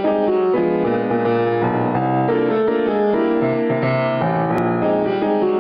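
Piano music with a quick, even run of notes at a steady level.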